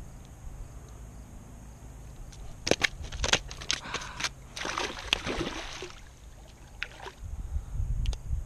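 Northern pike dropped from fish grippers onto shoreline rocks: a few sharp slaps and knocks, then a burst of splashing and sloshing about halfway through as it flops back into the water. Wind rumbles on the microphone at the start and end.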